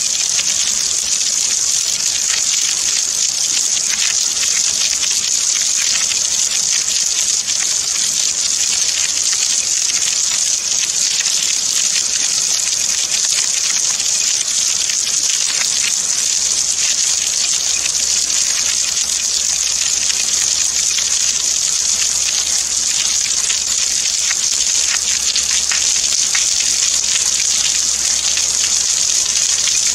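Rain falling steadily: an even, unbroken hiss of water with a fine patter of drops.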